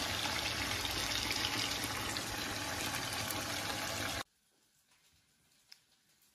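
Adobo of pork, chicken and potatoes sizzling and bubbling in its sauce in a frying pan on the stove, a steady hiss that cuts off suddenly about four seconds in.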